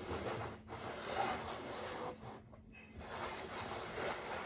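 Rubbing and scraping noise in stretches, with a short pause a little after two seconds in.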